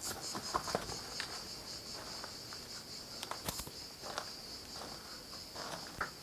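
Insects trilling steadily at a high pitch, with scattered footsteps and small clicks of loose stones underfoot.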